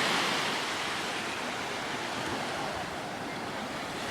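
Ocean surf breaking and washing on the shore, a steady rushing hiss that eases slightly midway.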